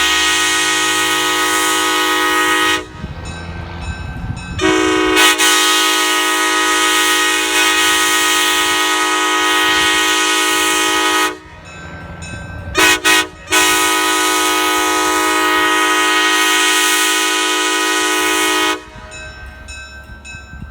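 Nathan Airchime K5LA raised-letter five-chime train horn (bells 1, 2, 3A, 4A and 5) blowing its chord in blasts. A long blast ends about three seconds in. After a pause, a short toot runs straight into a long blast lasting about six seconds. Two quick toots follow around thirteen seconds, then another long blast that ends near nineteen seconds.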